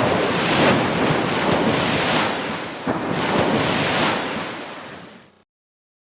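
Ocean surf washing in repeated rolling surges of noise, then fading out over about a second and ending in total silence a little after five seconds in.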